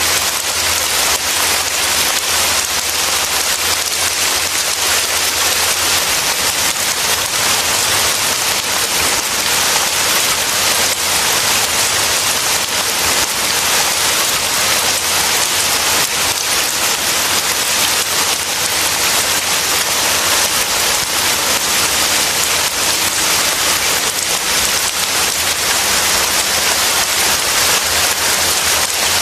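Heavy rain falling steadily: a dense, even hiss that does not change.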